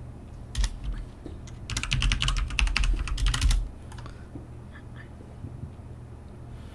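Computer keyboard typing: one key click about half a second in, then a quick run of keystrokes lasting about two seconds as a password is typed in.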